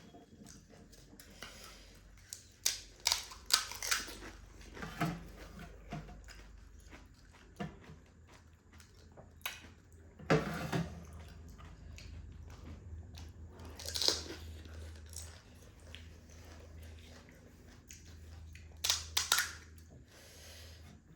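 Pani puri being eaten: the crisp hollow puri shells crunch loudly when bitten, in clusters about two to four seconds in, at about ten seconds, at fourteen seconds and near the end, with quieter chewing between.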